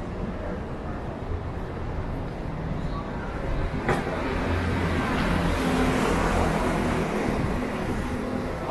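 City street traffic: a motor vehicle running on the road alongside, its rumble swelling into louder road noise about halfway through as it passes. A single sharp click just before the swell.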